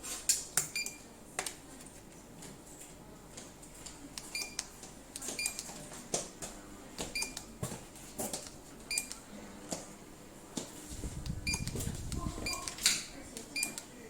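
Repeated button clicks, many of them followed by a short high electronic beep, as a remote control's presses are acknowledged by the ceiling fan receiver's buzzer. A brief low rumble comes about eleven seconds in.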